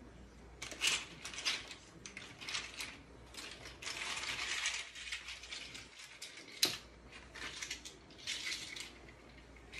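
Kitchen handling noises: a series of irregular short rattling and scraping bursts, one longer burst about four seconds in, and a couple of sharp clicks, about one second in and again near seven seconds.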